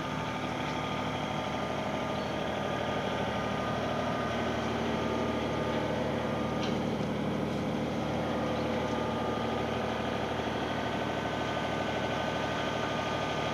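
Diesel engine of a 2015 Kobelco SK28SR-6 mini excavator running steadily, its pitch edging up a little partway through.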